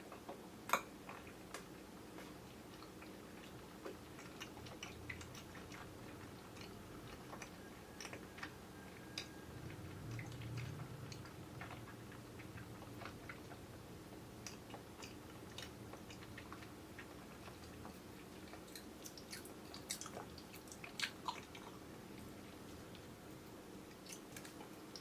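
Chewing of chewy kyoho grape jelly, with scattered sticky, wet mouth clicks over a faint steady hum, picked up by a camera's built-in microphone.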